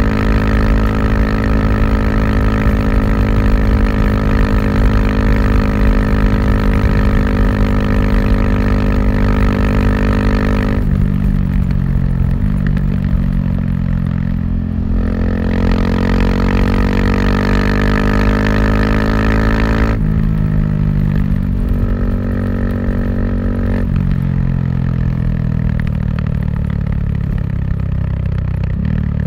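KTM 690 SMC R's single-cylinder engine running through an Arrow exhaust while riding. The engine holds one steady note for about ten seconds, then its note changes abruptly several times, with slower rises and falls in pitch between.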